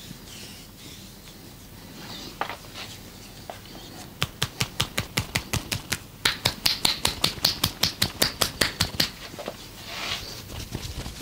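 Rapid, even slapping of hands on a body in a percussive tapping massage, about five or six strikes a second, starting about four seconds in and stopping near nine seconds. A single knock comes a little earlier.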